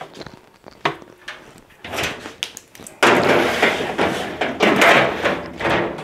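Clunks and rattling of plastic and sheet-metal parts being handled on a stripped-down washing machine. A few sharp knocks come about a second in, and busier clattering runs from about halfway through.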